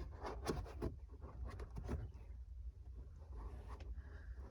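Scattered light knocks, taps and scraping as the amp rack panel is handled and pressed in the car's trunk, busiest in the first couple of seconds, over a steady low hum.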